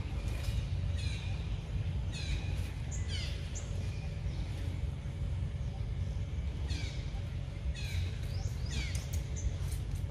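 Birds chirping outdoors: short, falling chirps come in scattered clusters, over a steady low rumble.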